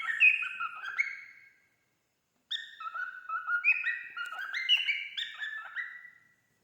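Male cockatiel whistling its song: a run of clear whistled notes stepping up and down in pitch, stopping about a second and a half in, then a second, longer phrase after a short pause.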